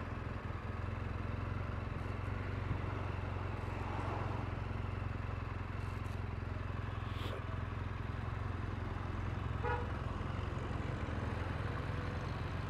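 BMW GS motorcycle's boxer-twin engine running at low road speed, a steady low rumble under wind and road noise, with a short higher-pitched beep about ten seconds in.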